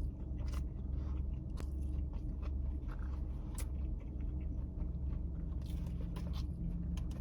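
A person chewing a mouthful of crispy fried chicken sandwich close to the microphone, with scattered small crunches and mouth clicks over a steady low hum.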